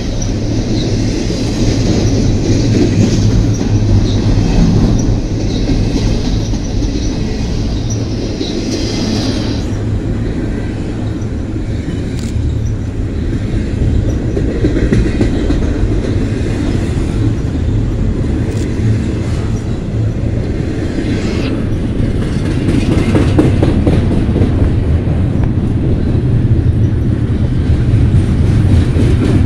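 Double-stack intermodal freight train rolling past at close range: a steady rumble of steel wheels on the rails. A high hiss over it fades out about ten seconds in.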